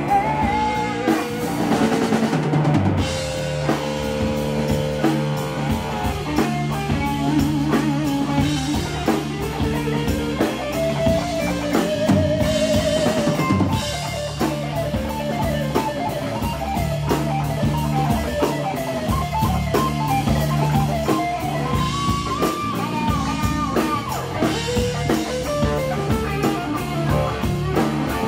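Live rock band playing: electric guitar over a drum kit and bass guitar.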